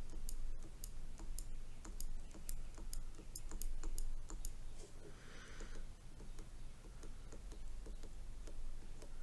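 A stylus tip tapping against a tablet's glass screen: light, irregular clicks, a few a second, as short shading marks are dabbed on.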